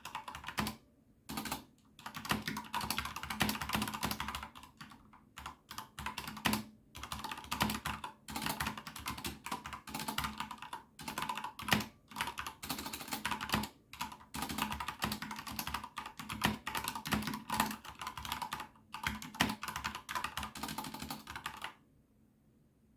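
Typing on a Corsair K70 RGB PRO mechanical keyboard with Cherry MX Red linear switches: rapid runs of key clacks broken by short pauses, stopping near the end.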